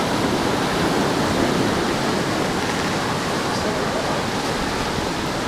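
Steady ocean surf washing on a beach: a continuous, even rush of noise with no distinct breaks.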